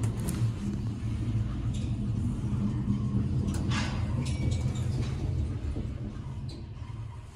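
1970 Express elevator car travelling, a steady low rumble of the ride with a few light clicks, easing off near the end as the car slows.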